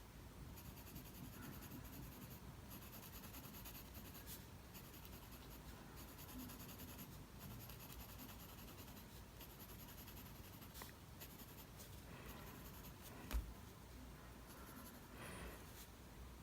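Mechanical pencil lead scratching faintly on paper in repeated short strokes, shading a tone. A single soft knock about three-quarters of the way through.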